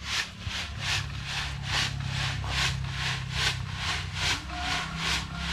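Sand being sifted through a homemade wire-mesh screen sieve, rasping in an even rhythm of about three strokes a second. The sand is slightly damp.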